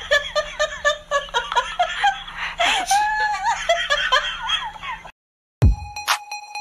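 High-pitched giggling and laughter in quick, rising-and-falling bursts that stop abruptly about five seconds in. After a brief silence there is a low thump, and music with a steady beat starts.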